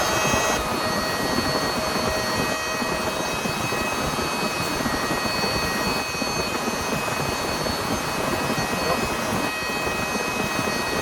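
Heavy rain falling as a steady, dense hiss, with a few faint, steady high-pitched tones running over it.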